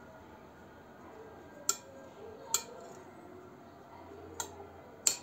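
Four light clicks of metal kitchen tongs against a glass baking dish, spread over a few seconds, as fried green peppers are placed one by one.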